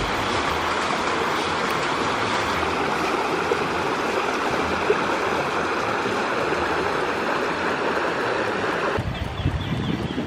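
Shallow rocky mountain stream rushing over stones and boulders, a steady, even rush of water. About nine seconds in it changes abruptly to a lower, rumblier rush.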